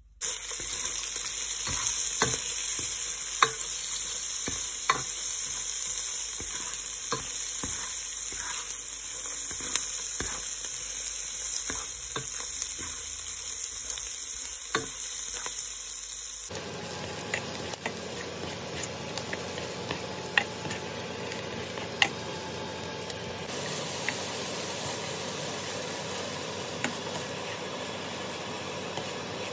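Oil sizzling in a pot as whole spices, then sliced onions and green chillies, fry, with a spatula stirring and knocking against the pan every second or two. About halfway through, the sizzle drops abruptly in level and then carries on steadily.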